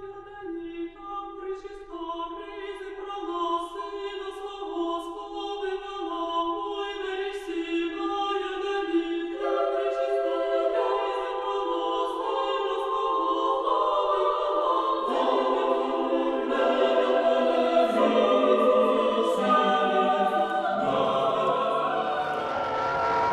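Background choral music: a choir sings slow, held chords over a sustained low note, growing steadily louder, with lower voices joining about fifteen seconds in.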